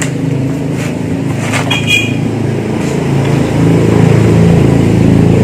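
A motor vehicle engine running in the street, growing steadily louder as it comes closer. A few light clicks and rattles sound over it, one with a brief high ring about two seconds in.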